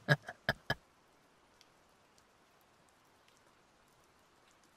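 A man's chuckle, a quick run of short laughs that tapers off within the first second, followed by faint steady rain.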